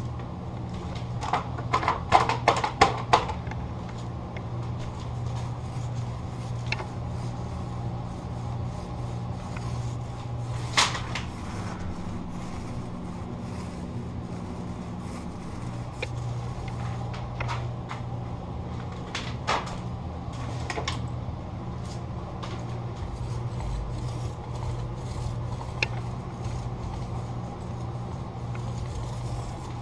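Mini paint roller being worked over a door's panels, with a cluster of clicks and rattles a couple of seconds in and a few single sharp clicks later, over a steady low hum.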